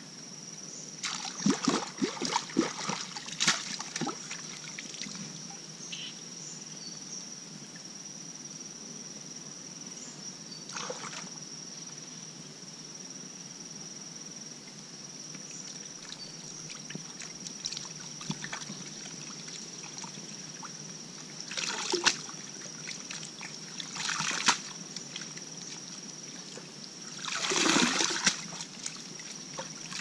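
Water sloshing and splashing as octopus pieces are washed by hand in a woven bamboo basket dipped in a shallow stream, with trickling as the basket is lifted and water drains through it. A cluster of splashes comes in the first few seconds, a few single ones in the middle, and a longer pouring splash near the end.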